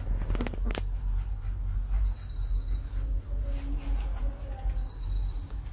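A newborn puppy gives a short rising squeak at the start, the tail of its whimpering. After it comes a steady low hum, with high chirping twice, about a second each.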